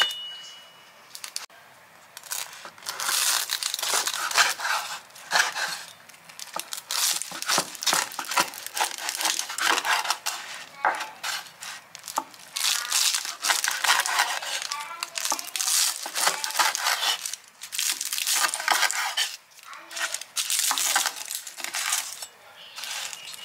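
Crisp baked phyllo pastry of a meat-filled börek crackling and crunching as a knife cuts through it on a wooden board, in repeated bursts of crunching.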